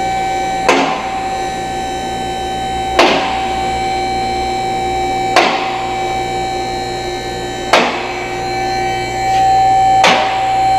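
Two-post vehicle lift raising a car: the hydraulic pump motor whines steadily, and the safety locks clack sharply about every two and a half seconds as the arms ride up past each latch.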